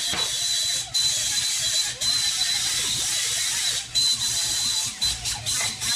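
Plasma cutter cutting through the steel truck frame: a steady hiss with a thin high whine, cutting out briefly several times as the trigger is released and squeezed again.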